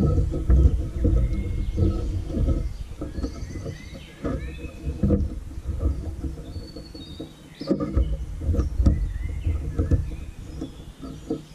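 Close rustling and scraping of cord being wound and knotted around a wooden pole, over a steady low rumble, with small birds chirping now and then in the background.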